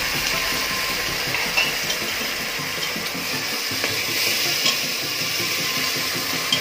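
Onion and tomato masala sizzling in an aluminium pot as it is stirred with a metal slotted spatula, with a few light clinks of the spatula against the pot.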